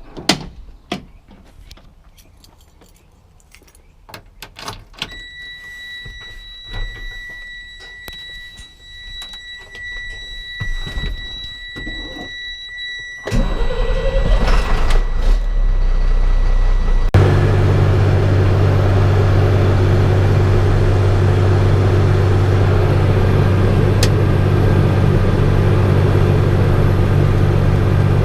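Pickup truck being started: clicks and knocks with a jingle of keys, and a steady high warning chime from about five seconds in. About halfway through the engine cranks and catches, the chime stops, and the engine settles into a steady idle.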